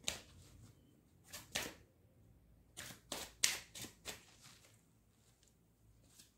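Deck of angel oracle cards being shuffled by hand to draw a card: faint, scattered card snaps and flicks, bunched together about three to four seconds in.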